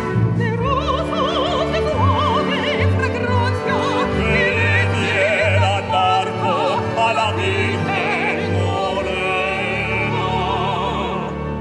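A soprano and a tenor singing an operatic duet with wide vibrato over a full symphony orchestra, the voices climbing to held high notes in the second half.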